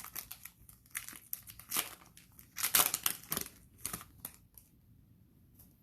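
Trading-card pack wrapper being crinkled and crumpled by hand. A run of sharp crackles fills roughly the first four seconds, then it turns quiet.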